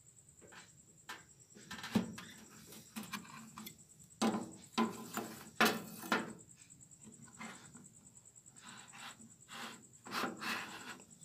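Long kitchen knife cutting through a firm slab of homemade chocolate on a plastic cutting board: irregular scrapes and knocks of the blade on the board and of the pieces being shifted by hand, busiest a few seconds in and again near the end.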